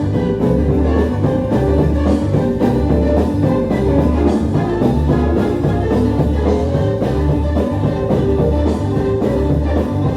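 Gospel band music: bass, guitar and drums playing a steady beat.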